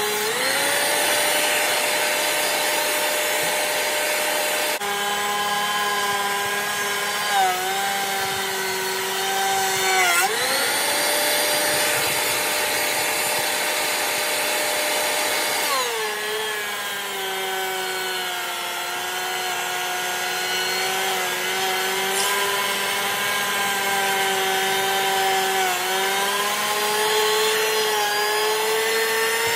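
DeWalt portable thickness planer running, its motor whine dropping in pitch while a rough-sawn post feeds through the cutterhead and rising again when the planer runs empty. It runs free for the first five seconds and again from about ten to sixteen seconds in, and is cutting the rest of the time.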